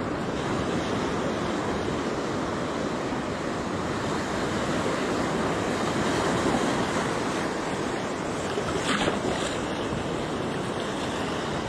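Ocean surf washing steadily onto the shore, with wind buffeting the microphone.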